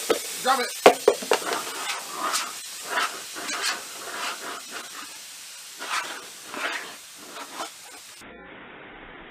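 Compressed air from a compressor's hose blow gun hissing in repeated short blasts, stopping abruptly about eight seconds in. Near the start, a dog makes excited pitched noises as it snaps at the air.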